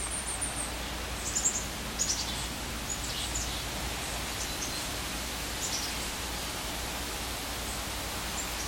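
Steady outdoor background hiss with small birds chirping briefly now and then.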